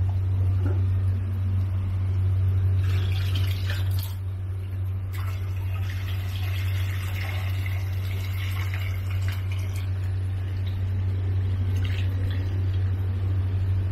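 Water running and splashing in a pond, a steady rushing hiss, over a constant low hum.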